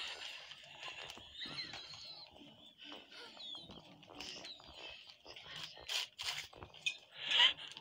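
A cat's small squeaks and clicks as it eats broccoli off a plate, played from a TV soundtrack. There is a louder sound near the end.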